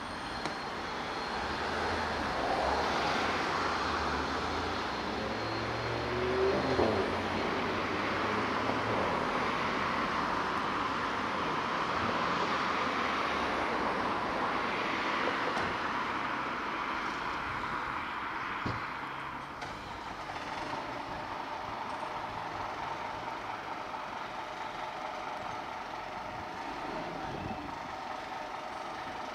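Scania P360 fire engine's five-cylinder diesel idling steadily, under a hiss of passing road traffic, with a brief rising-and-falling whine about seven seconds in.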